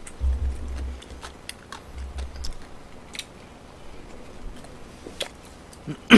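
Close-miked chewing and wet mouth clicks of someone eating sweet fried chicken, with a few low thuds early on and one loud sharp smack just before the end.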